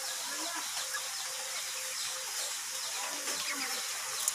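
Steady outdoor background hiss, with a single soft click near the end.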